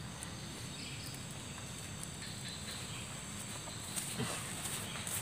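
Steady high drone of insects over outdoor background noise, with a few soft footfalls of bare feet on grass near the end.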